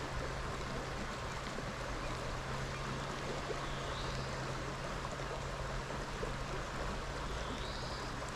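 Small river running over a shallow riffle: a steady rush of turbulent water.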